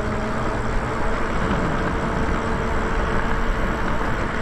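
Steady wind and road noise from riding a Lyric Graffiti electric bike along pavement, with a faint steady hum under it.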